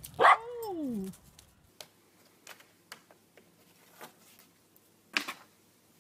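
A short vocal cry falling in pitch near the start, then faint light taps and rustles of a cat pawing at photos pinned to a cork board, with one louder brief knock about five seconds in.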